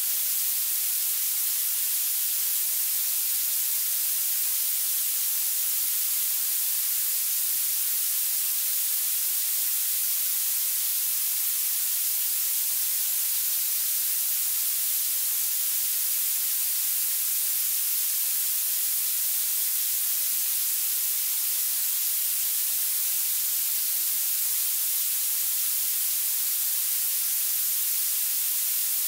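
Violet (purple) noise: a steady, unchanging hiss weighted heavily toward the very high end, with almost no bass.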